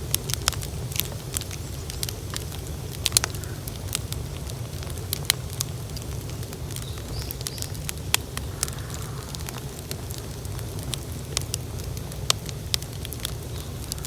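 Open bonfire of cut garden plants burning, crackling with irregular sharp pops over a steady low rumble.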